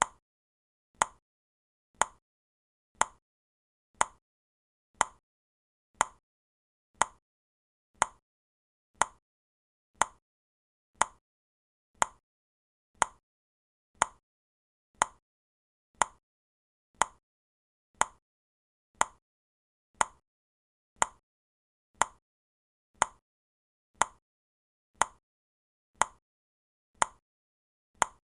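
Clock ticking steadily for a countdown timer: one short, sharp tick every second with silence between.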